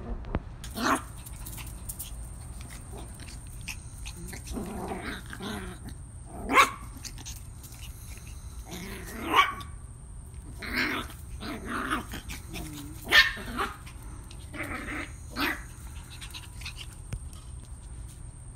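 Maltese puppies barking and growling in play. Short, sharp barks come every few seconds, between longer growling stretches.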